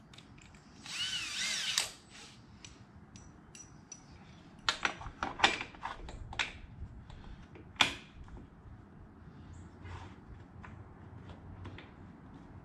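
Cordless drill with a 1/8-inch bit run briefly about a second in, its whine rising and falling in pitch as the trigger is worked. Several sharp clicks and taps follow.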